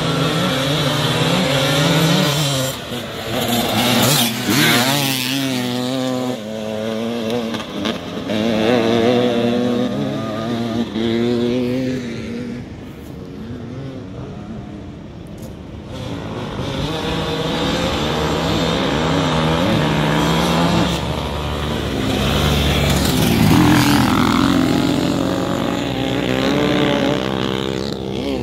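Off-road trail bike engines revving up and down, their pitch rising and falling throughout, with a quieter stretch about halfway through.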